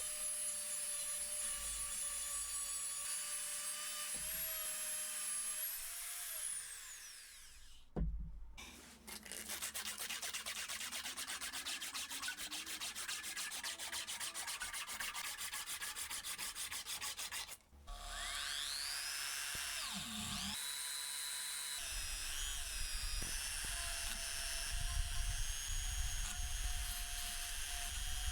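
Power tools working on a rusty steel wrench, in several cut-together clips. First, a high-pitched motor whine runs steadily and then winds down. After a cut comes a stretch of rapid, even scraping. After another cut, a motor spins up and its pitch wavers as it works the metal.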